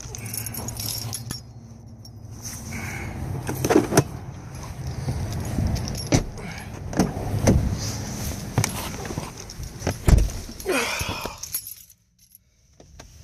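Car keys jangling and rattling in the hand, with scattered clicks and knocks from handling them. There is a heavier thump about ten seconds in.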